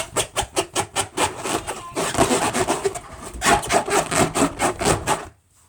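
Rapid rhythmic rubbing or rasping strokes, about five to seven a second, that stop abruptly about five seconds in.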